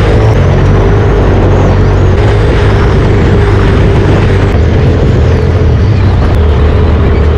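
Polaris RZR Turbo S race side-by-side running steadily at speed: loud, even engine drone mixed with wind and terrain rumble.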